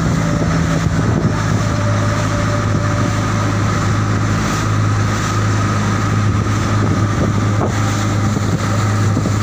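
A fishing boat's engine running with a steady drone, with wind and water noise.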